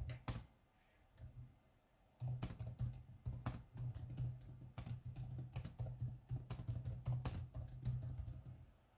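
Typing on a computer keyboard: a fast run of key clicks that starts about two seconds in, after a short pause, and stops just before the end.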